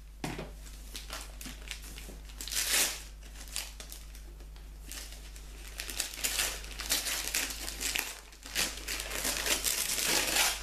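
Wrapping paper crinkling and tearing as a book-shaped parcel is unwrapped by hand, in irregular rustles that grow busier in the second half.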